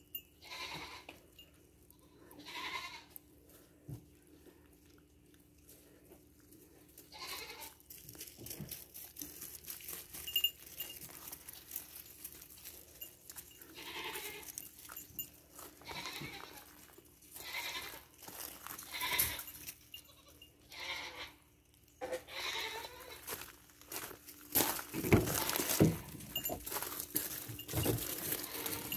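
Goats bleating on and off, short separate calls every second or two. Louder rustling and crunching fill the last few seconds.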